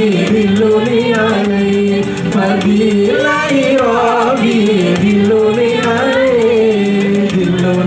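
Live sholawat, Islamic devotional song: a male vocalist sings a winding, ornamented melody through a microphone and PA over sustained backing music, with a quick, even ticking beat.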